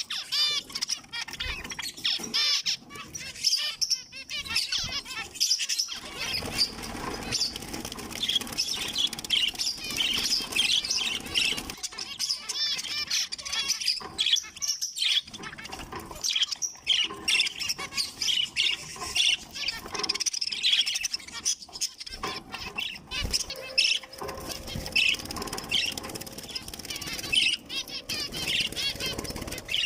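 Young zebra finches calling, a dense chatter of many short, overlapping chirps and beeps that never lets up.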